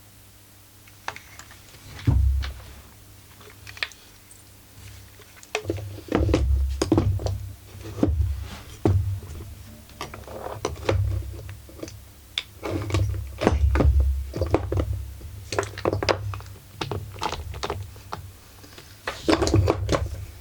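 Irregular knocks, thuds and sharp metallic clicks of tools and parts being handled during hands-on disassembly of a chainsaw, coming in clusters with short pauses between.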